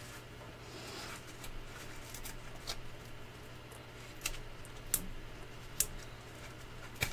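Light taps, clicks and rustles of hands working cardstock on a tabletop as small foam adhesive dots are pressed onto paper apron cutouts. About five sharp ticks are scattered through, over a low steady hum.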